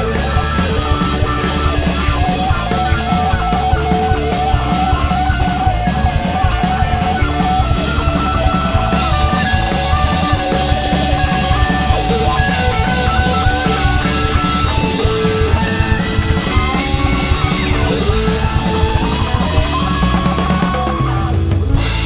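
Indie rock band recording in an instrumental passage: drum kit, guitars and bass, with a long, wavering lead line held over the top. Near the end the drums stop and a chord rings on.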